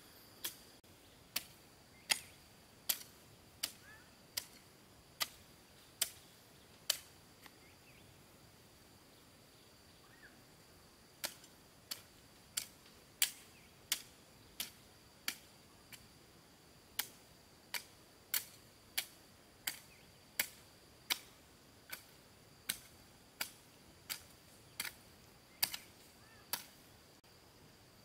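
A hand tool striking again and again, sharp hits about four every three seconds, with a pause of a few seconds before the middle.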